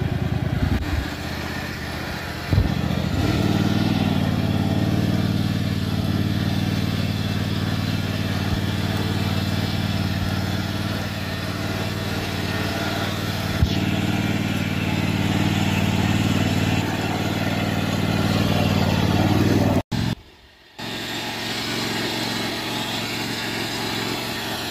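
Riding lawn mower engine running steadily under load while it pulls a weighted disc harrow through dirt. There is a single knock a couple of seconds in. The sound breaks off for about a second near the end, then resumes a little quieter.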